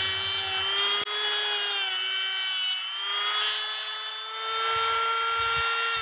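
Handheld rotary tool (Dremel-style) running at high speed with a steady whine, grinding a tiny metal piece held in needle-nose pliers. The sound changes abruptly about a second in, and the whine rises slightly in pitch around the middle.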